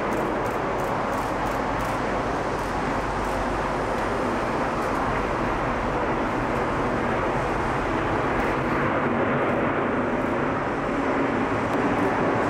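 Four GEnx engines of a Boeing 747-8F freighter as it touches down and rolls out on the runway: a steady rushing jet noise that grows a little louder near the end.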